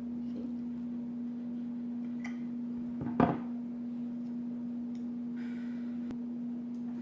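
A steady low hum, with one sharp clink about three seconds in and a few faint clicks.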